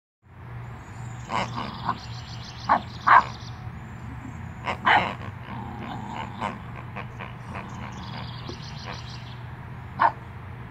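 A puppy giving a string of short, sharp yips and small barks while it plays, the loudest about three and five seconds in, with a last one near the end.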